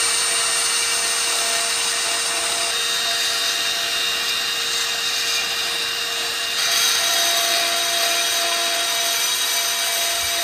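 Cordless drill running steadily at speed with a carbide burr, grinding the rough casting out of a cylinder head's port for a basic port cleanup. Its tone shifts slightly about six and a half seconds in.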